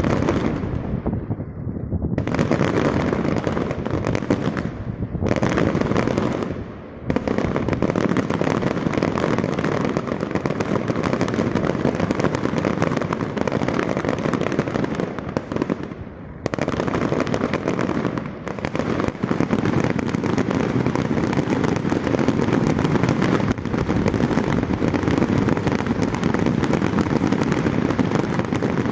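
Fireworks display: a dense, continuous barrage of bangs and crackling shells, broken by a few brief lulls.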